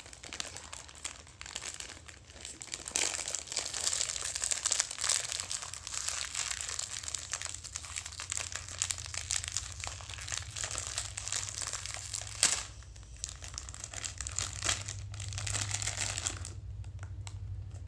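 Crinkling of a mystery-bag wrapper being opened and handled, continuous crackling for most of the stretch, with one sharp snap about twelve seconds in.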